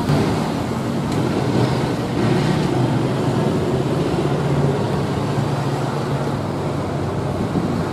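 Road traffic going by, with a steady rumble and a low vehicle engine hum that swells in the middle and then eases.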